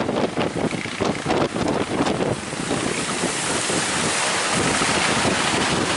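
Wind buffeting the microphone over rushing surf, choppy for the first two seconds and then a steady rush.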